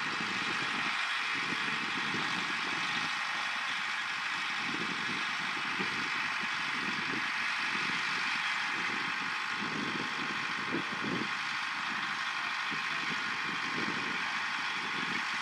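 Liebherr wheeled excavator's diesel engine running steadily, with a constant hiss.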